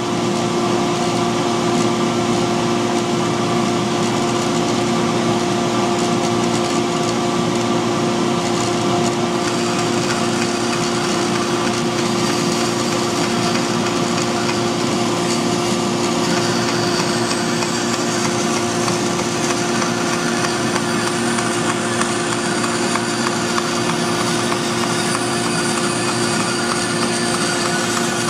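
Bandsaw running with a steady hum while its blade cuts through a wooden board.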